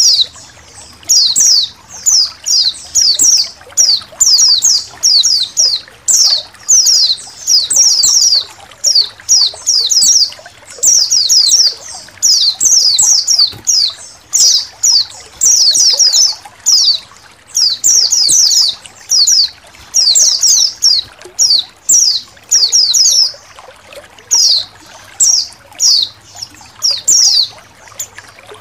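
A flock of white-eyes (pleci) chattering: rapid clusters of high, thin, downward-sliding chirps, one burst after another with short pauses between, over a background of trickling water.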